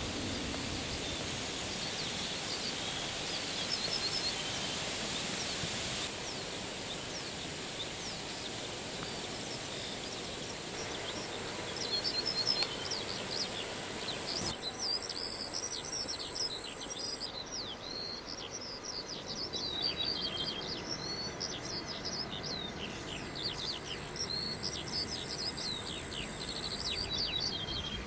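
Small songbirds chirping and singing in many short, high calls, sparse at first and much busier from about halfway on, over a steady outdoor background hiss.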